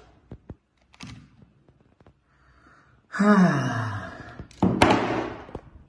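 A man sighs heavily: a long voiced sigh falling in pitch about three seconds in, followed by a breathy exhale. A few faint clicks come before it.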